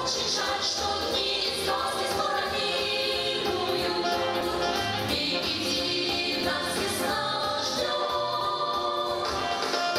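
A song: voices singing over instrumental backing at a steady level.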